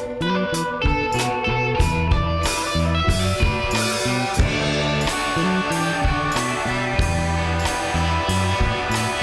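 Background music: guitar-led rock or blues track with bass and drums keeping a steady beat.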